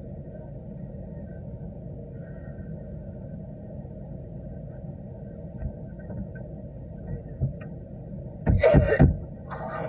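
Low steady rumble of a car's idling engine heard from inside the cabin, with a woman coughing twice near the end, the first cough louder.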